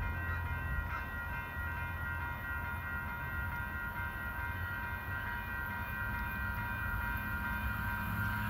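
SMART diesel multiple-unit train approaching from a distance: a steady low engine rumble with a set of steady high tones over it, growing slightly louder near the end.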